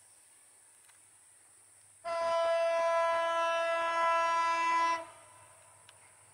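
Air horn of an EMD GT38ACL diesel-electric locomotive hauling a passenger train, sounded in one steady blast of about three seconds that starts about two seconds in and cuts off sharply.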